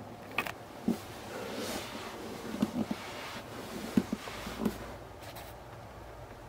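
Soft, scattered knocks and clicks with a little rustling over a quiet room background: movement and handling noise from someone carrying a handheld camera along the shelves.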